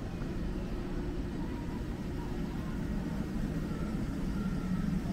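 Steady low rumble of city background noise, with a few faint voices of passers-by.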